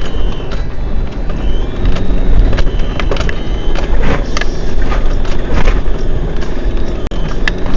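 A motor vehicle running, with a thin high whistle that comes and goes over a steady low rumble, and a few sharp clicks.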